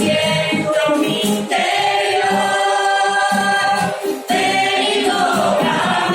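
Christian worship song sung in Spanish: several voices singing together in long held notes over musical accompaniment, with brief breaks between phrases.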